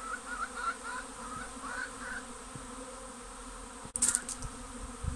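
Steady buzzing hum of a large honeybee swarm flying around a hive box as the bees move in. A sharp click and a short rustle come about four seconds in.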